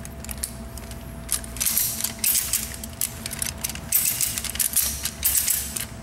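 Ratchet strap being tightened: the handle is worked back and forth and the pawl clicks over the spool's teeth as the webbing winds on, with two longer runs of quick clicking about a second and a half in and again about four seconds in.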